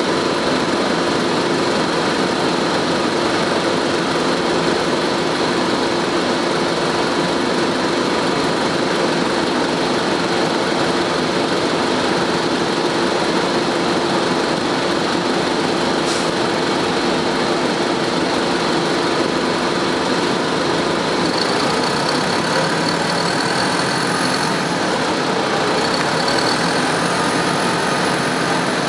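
Inside a 1998 Nova RTS city bus: the Detroit Diesel Series 50 four-cylinder diesel engine running steadily, under the constant rush of the bus's air conditioning. A faint high whine rises in pitch over the last several seconds.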